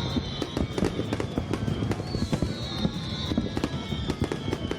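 Fireworks going off in rapid, irregular cracks and pops.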